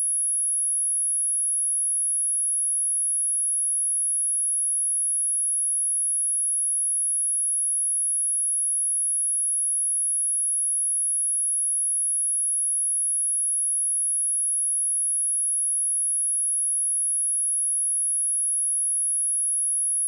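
A steady, high-pitched pure sine tone at 10721 Hz, a test tone for checking speakers and headphones, held at one pitch and level throughout.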